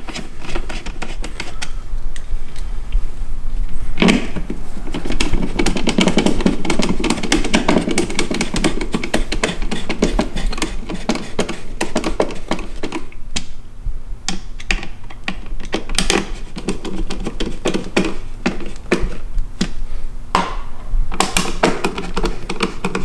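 Hand ratcheting screwdriver clicking rapidly and unevenly as Phillips screws are driven to fasten a car door speaker into its plastic mounting, with small taps and knocks of the tool on the speaker and panel.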